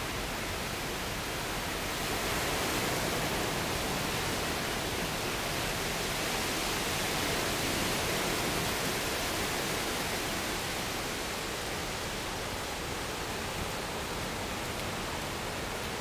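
Ocean surf breaking and washing over the shallows: a steady rushing noise that swells a little for a few seconds in the middle.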